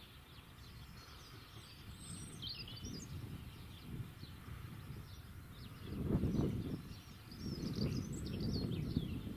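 Small birds chirping over a low rumble that swells loudly about six seconds in and stays up to the end.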